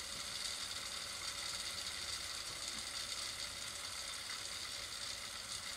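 Steady low hiss of background noise with no distinct clicks or knocks.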